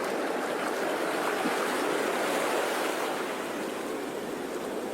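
Sea waves washing on the shore, a steady surf that swells a little in the middle and eases off toward the end.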